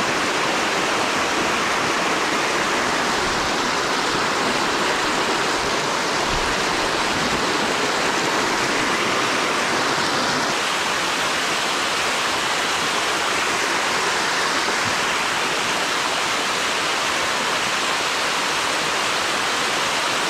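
Waterfall pouring down a rock face close by: a loud, steady, unbroken rush of water.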